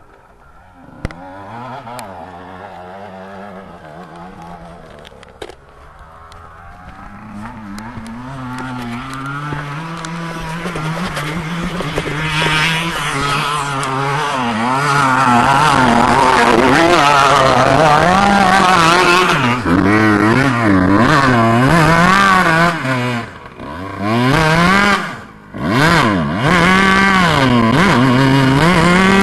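Dirt bike engine climbing a hill, growing louder as it comes close, its pitch rising and falling over and over as the rider works the throttle. Near the end the engine sound drops away briefly twice before coming back loud.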